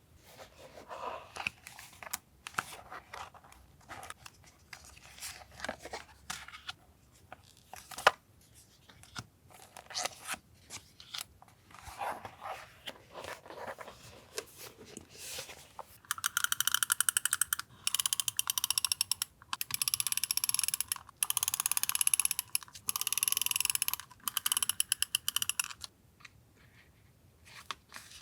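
Paper and stationery handled on a desk: soft rustles and small taps. About halfway in come six harsh, rasping strokes of about a second and a half each, with short gaps between them.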